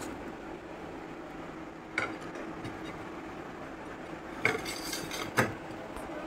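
Plastic popsicle mold and frozen ice-cream bar being handled: a few short knocks and clicks, about two seconds in and twice near the end, as the bar is pulled out of the mold and set on a plate, over a low steady background hum.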